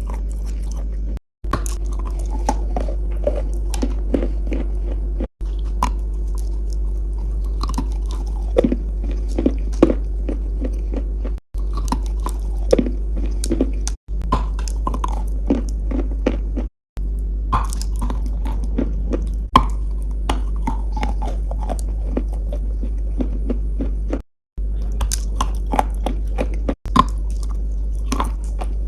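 Close-up biting and chewing of pieces of edible chalk-type mineral: a run of many small, crisp crunches and crackles over a steady low hum. The sound drops out completely for a moment about five times where clips are cut together.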